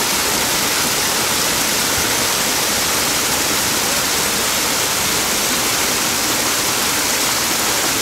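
Steady, even rush of running water at the pond, without change or break.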